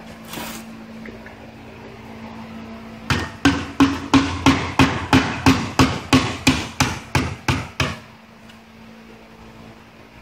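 A hammer striking the head of an Autochlor dishwasher motor, loosening it from the motor body. About fifteen sharp blows come at roughly three a second, starting about three seconds in and stopping about eight seconds in.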